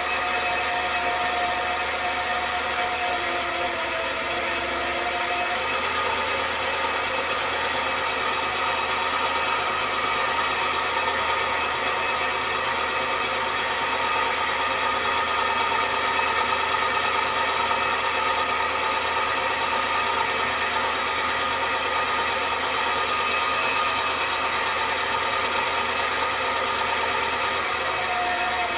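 Suzuki F6A three-cylinder engine idling steadily with its PCV line's valve pulled fully open, a deliberate vacuum leak that pulls down the engine vacuum and idle RPM. A faint thin tone stops about five seconds in.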